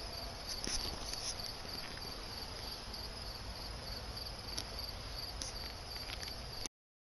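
Outdoor ambience with a steady high-pitched insect chirring, which cuts off abruptly near the end.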